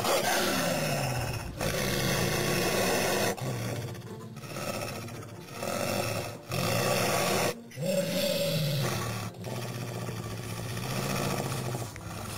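A werewolf's deep growls: a run of drawn-out growls, each lasting one to two seconds, with short breaks between them.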